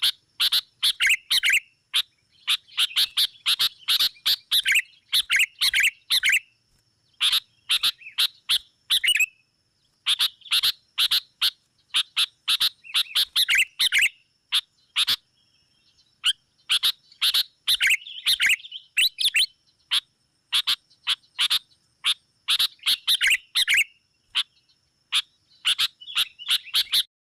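Sooty-headed bulbuls (kutilang) giving harsh, agitated chattering calls in rapid bursts of sharp notes with short pauses between. This is the excited rival-challenging call used as a lure to draw other bulbuls in for trapping.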